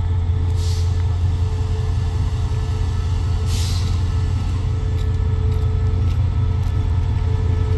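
Diesel locomotive idling with a steady low engine hum. Two short hisses of air release, about half a second in and again about three and a half seconds in.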